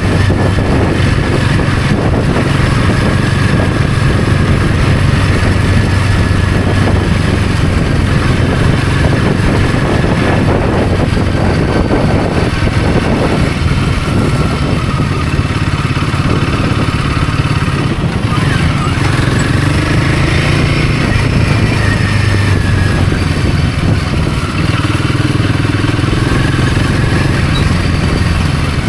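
Royal Enfield Himalayan 450's single-cylinder engine running steadily while the bike is ridden at a fairly constant speed.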